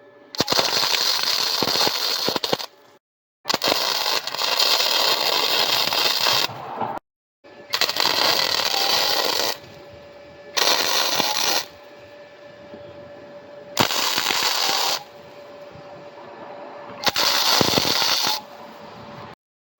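Welding on a cracked steel frame tube: loud bursts of sputtering crackle, each a second or two long. They are cut together with abrupt breaks and quieter stretches that carry a steady hum.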